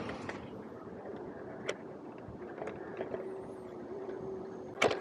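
Rental e-bike rolling along a city street: steady tyre and wind noise with a few sharp clicks and rattles, and a faint steady hum in the second half. A louder sharp knock comes near the end.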